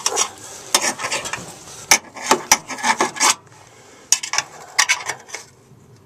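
Screwdriver tip prying and scraping at the edge of a small pressed-in metal access plug in the truck's sheet metal, trying to pop it out: irregular metal-on-metal scrapes and clicks, with a short pause a little past halfway.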